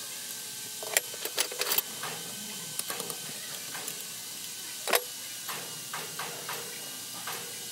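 Hand tool clinking and tapping against metal engine parts around the water pump: a run of sharp, irregular metallic clicks, loudest once about five seconds in. Under it runs a steady hiss with a faint hum.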